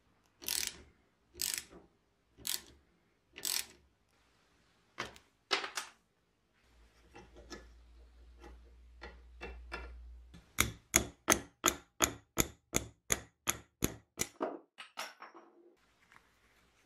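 Metal-on-metal scraping and clicking as a vintage blowtorch's valve body and threaded rod are worked by hand: four rasping strokes about a second apart, then after a pause a fast run of sharp clicks, about four a second, that fades out.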